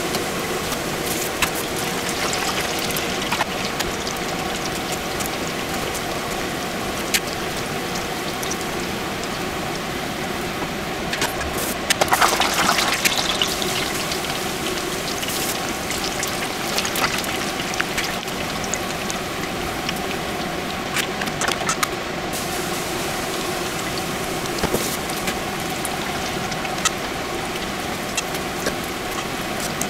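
Tempura deep-frying in a pot of hot oil: a steady sizzle with frequent small crackles and pops, swelling into a louder burst of sizzling about twelve seconds in.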